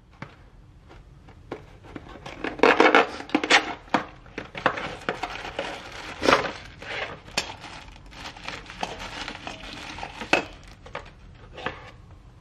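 Hands handling packaging and hard parts: rustling and crinkling with irregular sharp clicks and light clatter, busiest about two to four seconds in and with another sharp knock about six seconds in.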